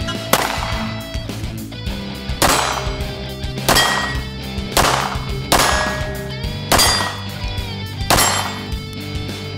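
Music with sustained chords, cut by loud crashing hits roughly every second, each ringing out briefly.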